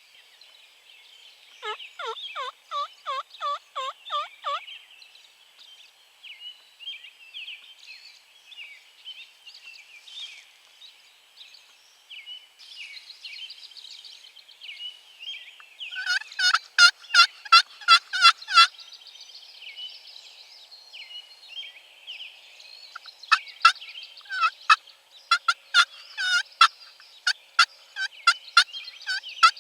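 Pre-dawn bird chorus: a steady chatter of small birds, with three loud series of quickly repeated call notes, the first about two seconds in, the next around the middle, and a longer one near the end.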